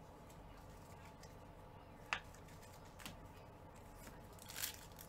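Light handling noises: two sharp clicks a second apart, then the crinkle of a foil trading-card pack being picked up near the end.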